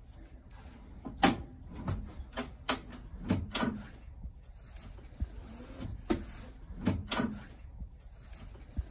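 Scopema swivel seat base clicking and clunking as the seat is unlocked and turned by hand, a string of sharp knocks and clicks at irregular intervals.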